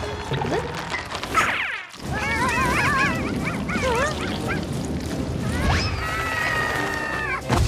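Cartoon soundtrack of high, squeaky gibberish voices from animated ant characters: a swoosh about a second and a half in, then warbling chatter, then a long held squeal near the end, over background music.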